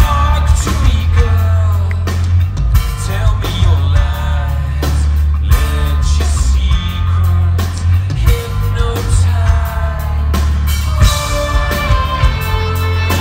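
Live pop band playing loud through an arena PA: electric guitar, heavy sustained bass and a drum beat, with a male lead voice singing over it.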